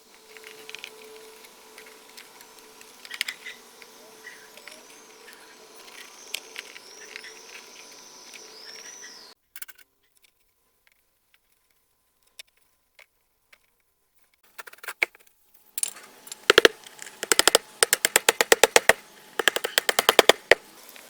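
Faint outdoor background with a few short chirps, then after a pause, two bursts of rapid, sharp, evenly spaced clicks, about ten a second, from a tool at work.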